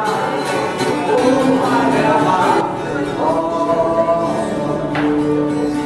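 A song with voices singing long, held notes over instrumental accompaniment.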